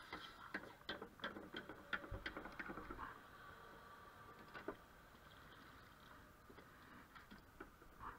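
Light metallic clicks and taps of hand tools working at a motorcycle exhaust's dB killer baffle to pull it out: a quick cluster in the first three seconds and a single tap near the middle.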